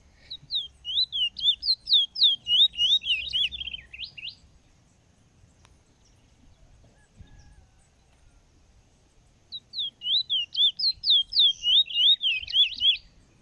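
A caged Trinidad bullfinch (chestnut-bellied seed finch) singing two loud phrases, one near the start and one near the end. Each is a quick run of clear, high down-slurred whistled notes that speeds into a fast trill at its close.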